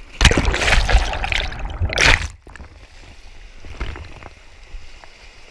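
Kayak capsizing and rolling back up in whitewater: a loud rush of splashing, churning water over the camera microphone for about two seconds, which cuts off suddenly. After that comes the steady flow of the river with a few faint clicks.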